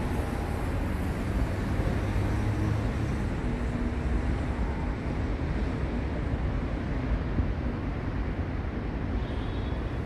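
Steady outdoor background noise: a low, even rumble with no distinct events.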